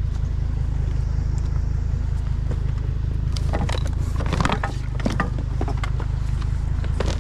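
Steady low rumble of an idling vehicle engine, with a flurry of clicking and rattling about three seconds in as scrap items are handled.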